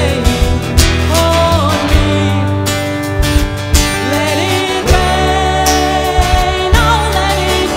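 Live band playing a song: electric guitars, bass and drums, with a sung melody over them.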